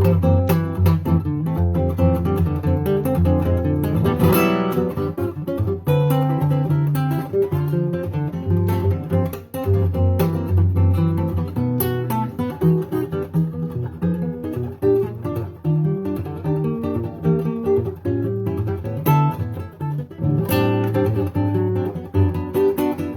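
Acoustic guitar playing, with plucked notes and strummed chords.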